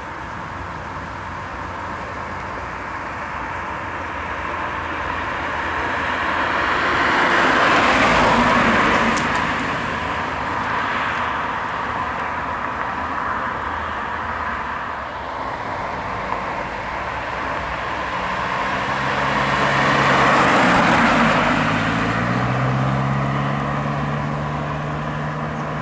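1991 Saab 900 S "Softturbo" coupe, with its low-pressure turbocharged four-cylinder engine, driving past twice at cruising speed: engine and tyre noise swells and fades, loudest about eight seconds in and again around twenty-one seconds. After the second pass its engine note climbs in pitch as it pulls away.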